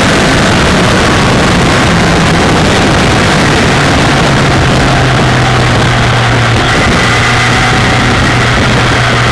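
Steady wind rush over the microphone at road speed, over the even drone of a Kawasaki ZX-10R's inline-four engine at a constant cruise.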